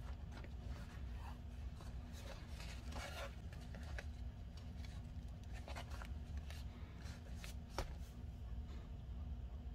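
Paper pages of a glued junk journal being handled and turned: scattered rustles and soft brushing of paper, with a sharper paper snap a little before the end, over a steady low hum.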